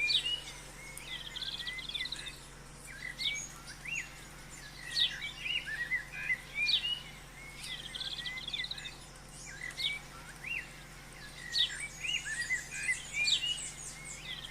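Wild birds singing and calling: repeated sharp whistled notes and quick trills that recur every couple of seconds.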